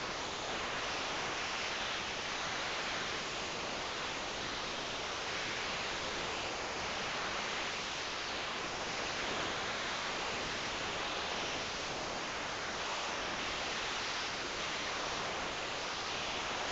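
Steady, even hiss of noise with no clear rhythm or separate sounds.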